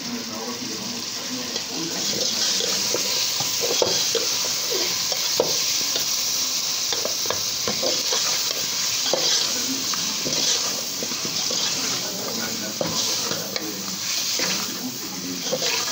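Chicken pieces frying in hot oil with onion, garlic and spices in a large metal pot, sizzling steadily while a metal ladle stirs them. The ladle scrapes and clacks against the pot many times.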